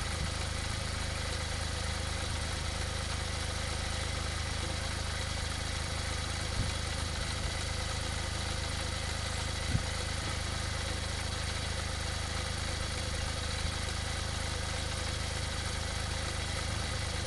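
Smart car's small engine idling steadily at the tailpipe while its exhaust smokes heavily, with two small knocks about midway.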